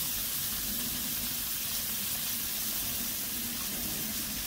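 Sliced sausage frying in melted butter in a skillet, a steady sizzle.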